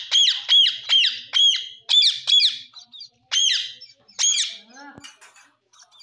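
Young Indian ringneck parakeet squawking: a fast run of harsh, high-pitched screeching calls, spacing out to a few single calls after about three seconds.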